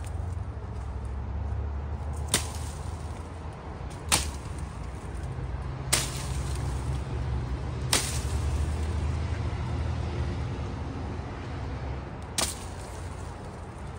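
Hand-forged brush axe (bill hook) chopping into shrub stems: five sharp cuts, the first four about two seconds apart and the last after a longer pause, over a steady low rumble.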